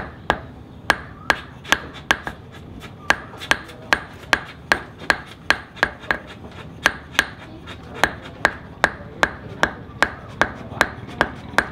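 Small hand hammer tapping a thin silver strip on a steel anvil block, a steady run of sharp metallic strikes, about two or three a second, each with a brief ring.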